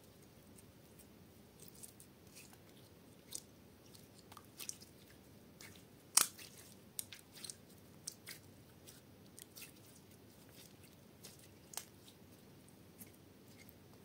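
Clear jelly slime squeezed and stretched by hand, giving off scattered sticky clicks and pops at irregular moments, the loudest about six seconds in.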